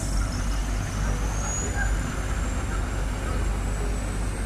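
A steady low engine rumble, as of a vehicle engine idling, with a faint high whine that rises slowly in pitch from about a second in.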